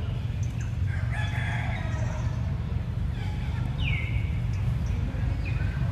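Several short animal calls, one a falling squeal about four seconds in, over a steady low rumble.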